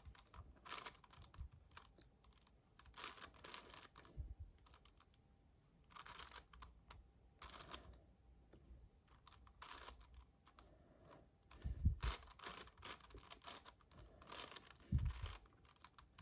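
Magnetic 7x7 Rubik's cube being turned by hand: bursts of quick, faint plastic clicks as the layers are turned, broken by short pauses, with a few soft knocks from handling.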